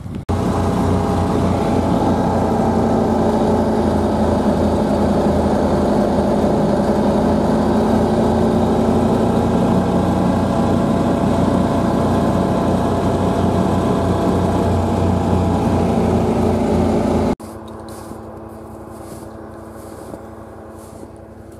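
Tracked side-by-side (UTV on snow tracks) running steadily as it drives through deep snow, its engine and track drive loud and close. The sound cuts off abruptly near the end, leaving a quieter steady hum.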